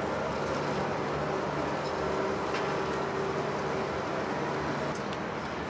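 City street traffic noise with a vehicle engine running steadily; its hum drops away near the end, and a couple of faint clicks are heard.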